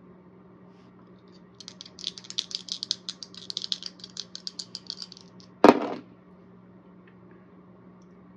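Two dice rattling in cupped hands, a quick run of clicks for about three and a half seconds, then thrown onto a cardboard Clue game board with one loud clatter.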